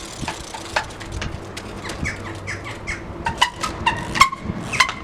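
Trials bike being ridden on wet ground: brakes giving repeated short squeals among sharp clicks and knocks as the bike hops and lands. The loudest knock comes about four seconds in.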